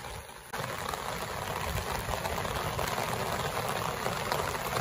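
Heavy rain falling, a steady even hiss that comes in abruptly about half a second in.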